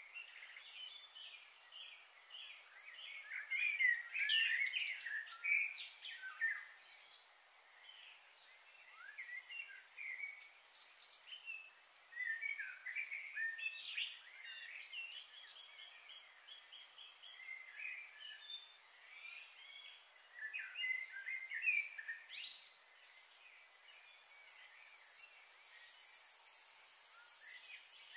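Wild birds singing and chirping, several birds at once with quick short notes that come in clusters, loudest about four to six seconds in, again around fourteen seconds and around twenty-two seconds, and thinning out near the end, over a faint steady hiss.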